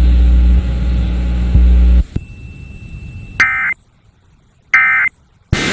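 Steady low hum of the station audio cuts off about two seconds in. After that, two short bursts of EAS end-of-message data tones about a second and a half apart, with near silence between them, and a loud static hiss that comes in just before the end.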